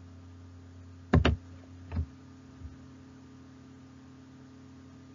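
A few sharp clicks over a steady low hum: two in quick succession about a second in, a third about a second later and a fainter one soon after.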